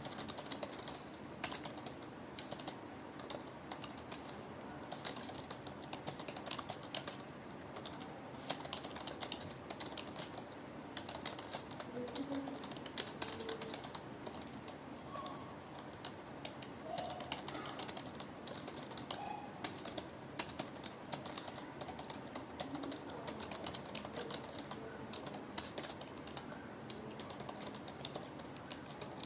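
Computer keyboard being typed on continuously at a steady pace, key clicks with occasional louder strokes.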